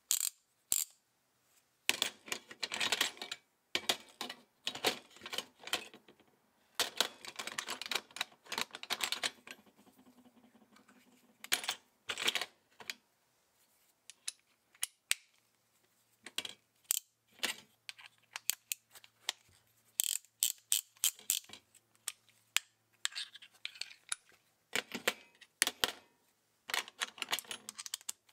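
Vintage ratcheting box-end wrench worked back and forth by hand: the ratchet clicks in quick runs with pauses between, and lighter single clicks of steel on steel.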